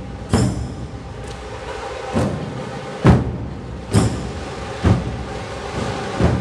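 Dhol drums of a Dhol-Tasha troupe beating a slow, steady rhythm, with heavy strokes a little under a second apart over a continuous background of drumming. A few strokes carry a bright, ringing edge.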